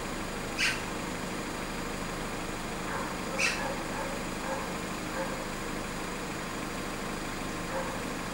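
Steady outdoor background hiss, broken by two short, sharp high-pitched sounds, one about half a second in and one about three and a half seconds in.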